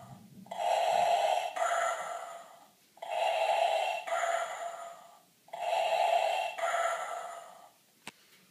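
Darth Vader alarm clock playing Vader's respirator breathing through its small speaker: three slow in-and-out breaths, each about two and a half seconds. A single sharp click follows near the end.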